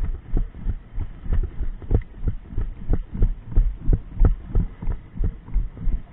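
Rhythmic low thuds, about three a second, from the footfalls of a player running with the camera on their body, jolting it at each step. The thudding stops near the end.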